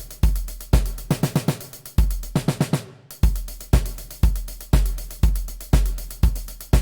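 MIDI drum-machine beat: a deep kick drum about twice a second under steady hi-hat ticks, with two quick runs of tom hits about a second and two and a half seconds in. The beat breaks off briefly near three seconds, then picks up again.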